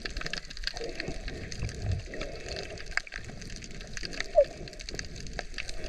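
Underwater sound picked up by a camera in its housing: a steady watery hiss with many scattered sharp clicks and crackles, and one brief pitched chirp about four and a half seconds in.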